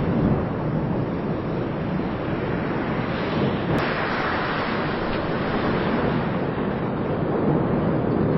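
Steady, rushing noise of the Cumbre Vieja volcano erupting, with lava fountaining from its vent. The noise turns brighter and more hissing for a second or two about four seconds in.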